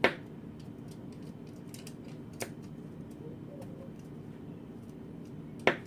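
Three sharp taps on a hard kitchen surface, the loudest right at the start, one about two and a half seconds in and one near the end, with faint light ticks between, over a steady low hum.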